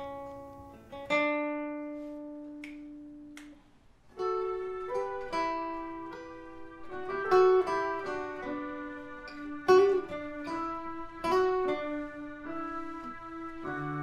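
Acoustic guitar picking a slow melody in single notes that ring out and fade. It drops to a brief lull about four seconds in, then comes back with busier picking.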